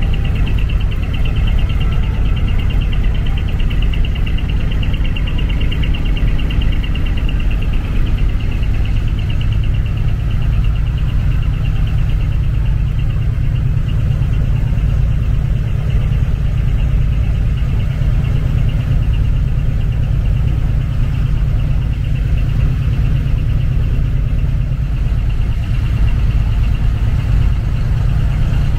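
Diesel truck engine idling close by, a steady low rumble with a thin high hum above it.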